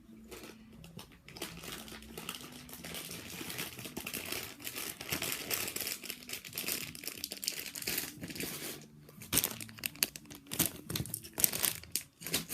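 Crinkling and rustling of a bag or packaging being handled continuously, with a run of louder, sharper crackles near the end.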